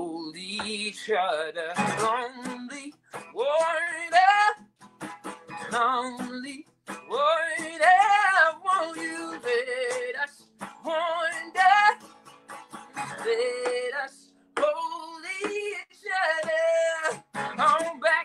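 A man singing a slow song with acoustic guitar accompaniment, in sung phrases of a few seconds each separated by short breaths.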